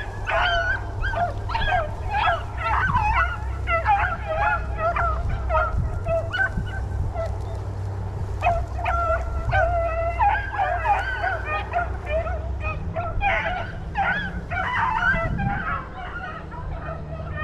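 A pack of rabbit hounds baying in chorus, many short overlapping cries from several dogs, as they run a rabbit's track.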